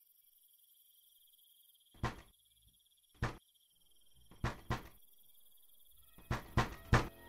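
Crickets chirping faintly and steadily, broken from about two seconds in by a series of heavy thuds that come closer together: one, then another, then a pair, then three in quick succession.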